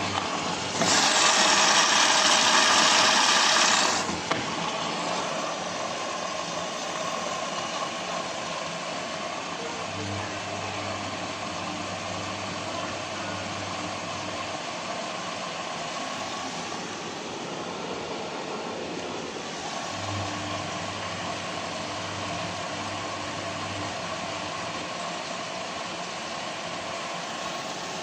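Samsung WF1600WCV front-loading washing machine mid-wash: a loud hiss lasts about three seconds near the start, then the drum motor hums in two spells of about four to five seconds each, turning the drum with pauses between, over a steady background noise.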